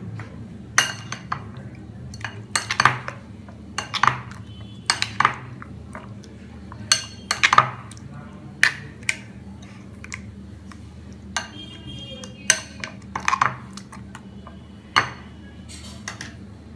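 Spoon clinking against a glass bowl while stirring chicken pieces into a wet egg batter, with sharp clinks at irregular intervals, roughly one a second.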